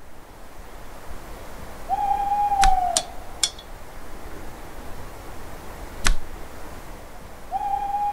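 An owl hooting: one long, slightly falling hoot about two seconds in and another starting near the end. A few sharp clicks come in between, over a steady hiss of night ambience.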